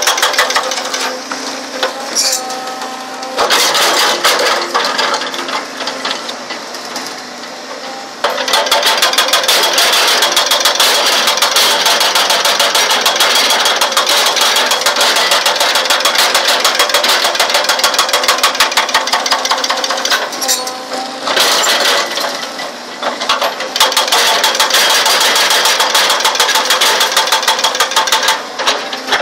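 Excavator-mounted hydraulic breaker hammering rapidly into a rock face, breaking stone. The blows run fast and continuous, stopping twice for a few seconds, about a quarter of the way in and again about two-thirds of the way through.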